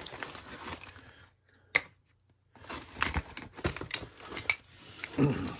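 Packaging being handled: wrapping crinkling and rustling with scattered light clicks and taps, broken by a short near-silent pause about a second and a half in.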